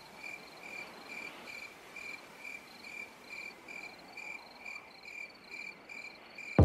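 A cricket chirping steadily, a high even chirp about twice a second, over a faint hiss.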